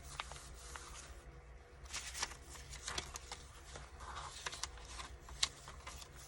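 Paper pages of a handmade junk journal being turned and handled: faint, irregular rustling with small clicks and taps.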